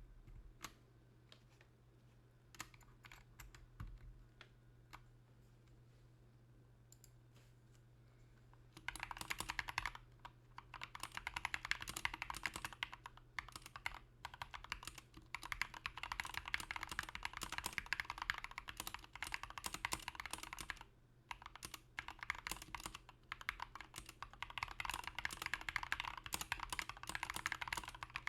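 Mechanical keyboard with stock, pre-lubed Gateron Red Pro linear switches and MDA-profile keycaps being typed on: a few scattered single keystrokes at first, then fast continuous typing from about nine seconds in, with a brief pause about two-thirds of the way through.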